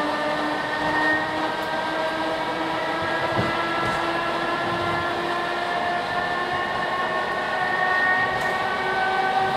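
Moving electric train heard from on board: a steady whine of several tones from the motors and gearing, drifting slowly in pitch as the speed changes, over the rumble of the wheels on the track, with an occasional faint low knock.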